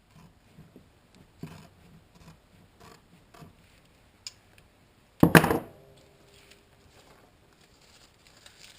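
Quiet handling and cutting noises as a duct tape sheet is worked, then one loud clatter with a brief ringing tone a little past five seconds in.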